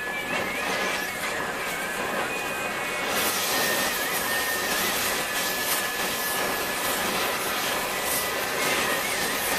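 MagneGas2 torch flame hissing steadily as it plays on a piece of tungsten, with a faint wavering whistle. About three seconds in the hiss turns brighter and a little louder, and it eases back near the end.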